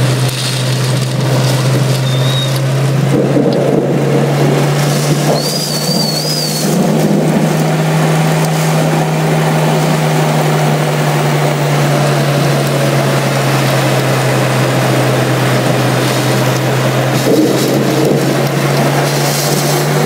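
Heavy rain pouring in strong wind, a dense steady roar, over a steady low hum. A brief high warbling whistle sounds about five seconds in.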